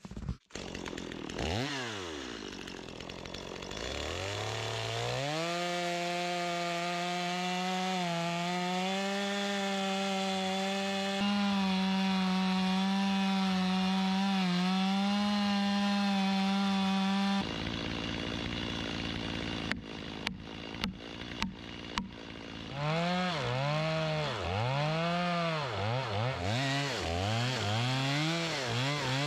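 Two-stroke Stihl chainsaw cutting through a white pine log: it speeds up over the first few seconds, holds a steady high pitch through the cut and stops abruptly about two-thirds of the way in. Near the end the saw is revved up and down repeatedly.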